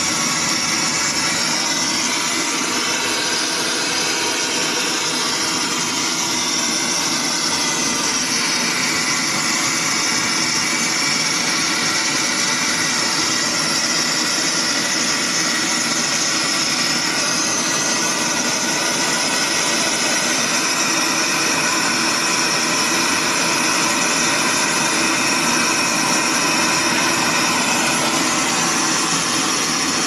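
Gas brazing torch flame burning with a steady hiss while a copper access-valve joint on a refrigerator compressor is being brazed.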